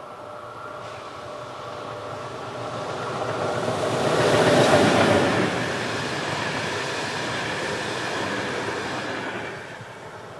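A train passing by: it grows louder, is loudest about halfway through, runs on steadily with a whine over the rumble, and fades near the end.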